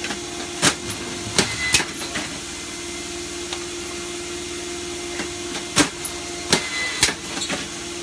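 Tray-seeding machine for pelletized tobacco seed running with a steady hum, while plastic seedling trays are pushed through it: several sharp plastic clacks about a second in, and again around six to seven seconds in.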